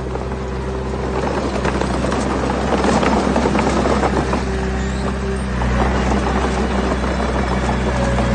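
Heavy-equipment diesel engine running steadily, with a stretch of gritty clattering and grinding, like stones being moved, from about a second and a half in to about five seconds.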